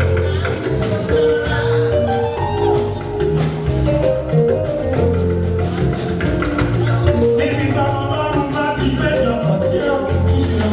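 Band music playing loudly with a steady beat, a bass line and busy percussion.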